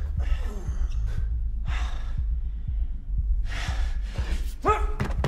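A winded man panting and gasping, with heavy breaths about a second apart and a short strained grunt near the end, over a steady low rumble.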